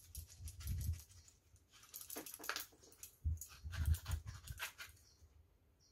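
Knife prying and scraping coconut meat out of broken pieces of shell over a metal bowl: a run of irregular clicks and scrapes with a few dull knocks.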